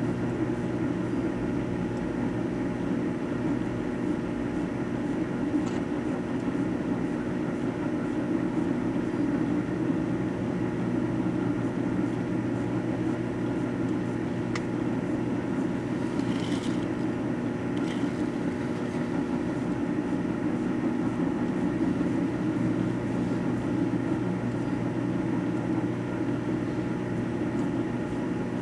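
Microwave oven running with a computer mouse inside: a steady mechanical hum, with two brief faint crackles about sixteen and eighteen seconds in.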